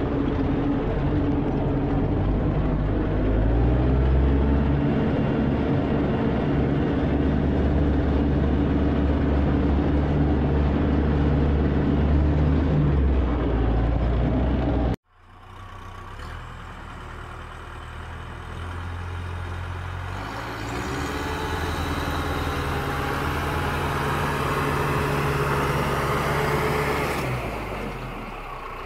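A farm tractor's diesel engine running under load as it pulls a disc harrow through ploughed soil, its pitch stepping up and down. About halfway through the sound cuts off abruptly. A second tractor engine then comes in as a tractor works in mud, quieter at first and louder from a few seconds later.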